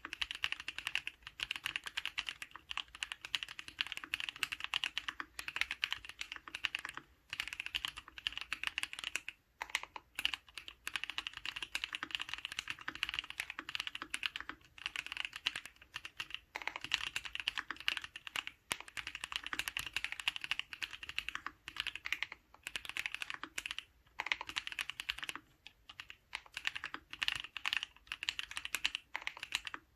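Continuous fast typing on a custom mechanical keyboard: paco linear switches (NovelKeys Cream housings with Halo stems, Superlube-lubed, 63.5 g slow-curve springs) in a stainless steel plate, dampened with Thinsulate, under GMK Oblivion and Hagoromo keycaps. The keystrokes come in quick runs broken by short pauses every few seconds.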